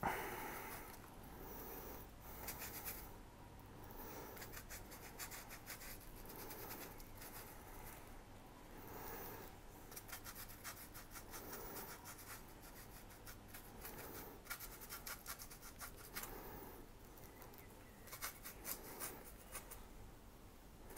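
Small paintbrush scratching and dabbing paint onto a polystyrene sheet in many short, irregular strokes, faint.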